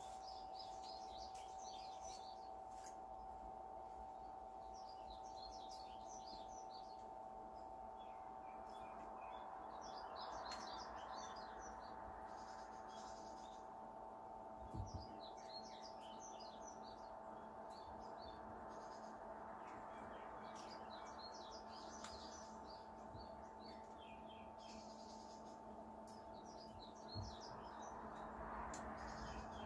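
Small birds chirping in short repeated bursts over a steady electric hum from a 120 W submersible pump running in the sugar syrup. A soft rushing noise swells twice, about ten seconds in and near the end.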